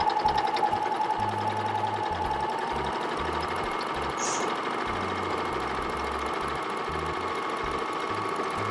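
Juki MO-1000 serger running steadily at speed, its motor whine and fast needle-and-looper stitching chatter unbroken as fabric is fed through.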